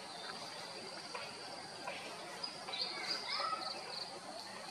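Outdoor forest sound: a steady high-pitched insect drone, with a few short chirping calls in quick succession around the middle.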